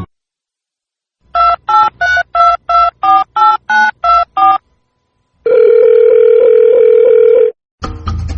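Touch-tone phone keypad dialing ten digits, short two-tone beeps about three a second, followed by a single steady ringing tone about two seconds long.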